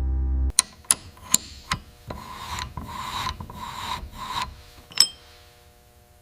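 Hand-tool work on a metal part: a few sharp clicks, then about five rasping strokes, like a file or wire brush scraping back and forth, then a sharp metallic clink with a short ring about five seconds in.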